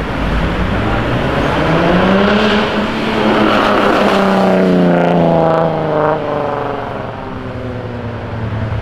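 Modified Jaguar F-Type S with a very loud aftermarket exhaust accelerating past. The engine note rises over the first few seconds, climbs again, then drops about six seconds in as the car eases off and settles into a lower, steady drone.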